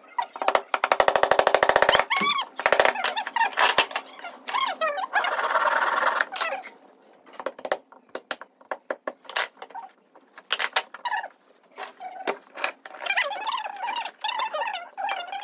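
Wooden parts of a handmade miniature bullock cart being worked and fitted together on a workbench. A quick run of rapid strokes comes first, followed by scattered sharp wooden knocks and clicks as the pieces are set against each other and on the bench.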